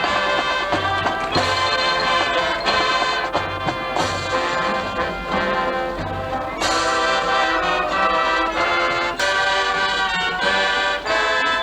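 Marching band playing, the brass section carrying sustained chords with the notes changing about every second or two.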